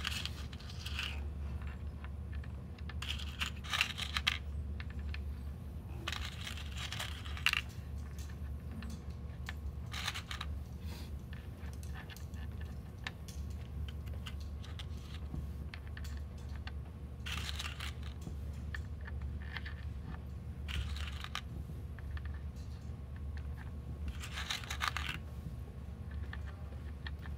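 Small metal Purdue Pegboard pins clinking and rattling in short bursts every few seconds as fingers pick them out of the metal-filled cups, with light clicks in between. A steady low hum runs underneath.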